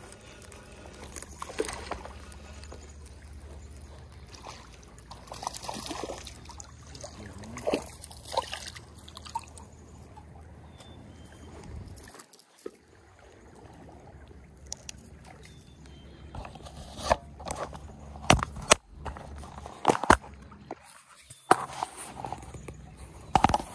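Shallow stream water sloshing and trickling, with a spinning reel being cranked. In the last several seconds, sharp knocks and rubbing of clothing against the microphone.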